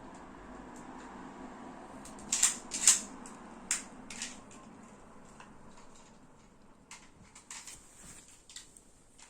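Scattered sharp clicks and knocks of small objects being handled. The loudest two come about two and a half to three seconds in, with fainter ones later.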